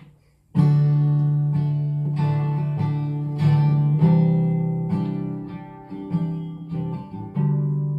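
Acoustic guitar strumming chords, starting about half a second in: a song's instrumental intro with a strum every half second to second.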